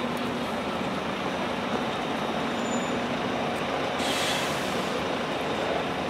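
City street traffic ambience: a steady wash of vehicle noise, with a hiss from about four seconds in lasting nearly two seconds.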